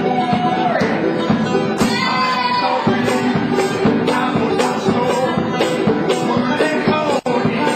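Upbeat band music with singing and a steady beat, cut by a brief gap about seven seconds in.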